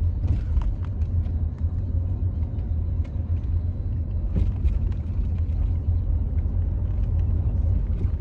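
Steady low road rumble heard inside a moving car's cabin, with a few light clicks over it.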